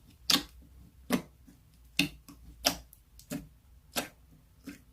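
Slime being pressed and worked by hand, giving a short, sharp sticky click about every two-thirds of a second.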